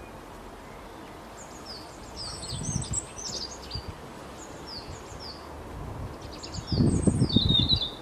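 Small songbirds chirping: scattered short, high, down-slurred chirps over a steady outdoor hiss, with a quick run of chirps near the end. A low rumbling noise comes in twice, loudest about seven seconds in.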